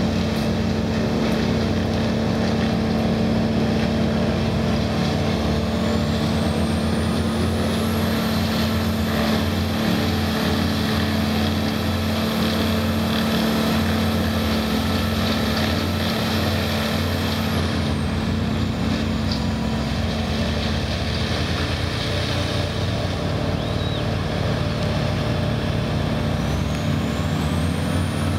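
Heavy equipment engine running steadily under load, with a high whine that rises, holds for about ten seconds, falls away, then rises again near the end.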